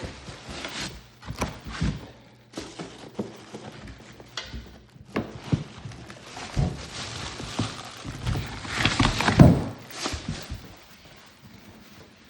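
Unpacking a heavy boxed model dump truck: cardboard and packing handled, with irregular knocks and thuds and a louder patch of rustling about nine seconds in.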